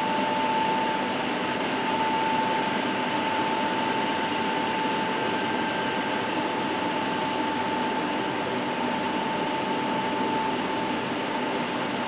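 Steady din of a transmitter building's running plant, its cooling blowers and electrical equipment, with a steady tone held above the noise.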